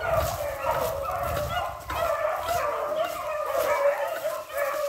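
A pack of hunting dogs baying and yelping together, many voices overlapping without a break, in full cry on game that is on the move.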